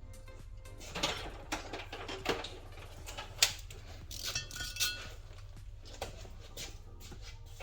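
Irregular metal clinks and knocks, about eight in all, a few ringing briefly: steel valve-train parts being handled and set down as an LS aluminium cylinder head is taken apart. The loudest clink comes about three and a half seconds in.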